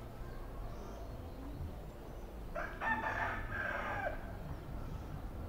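A rooster crowing once, about two and a half seconds in, a single call of about a second and a half that falls away at the end, over a faint steady low background.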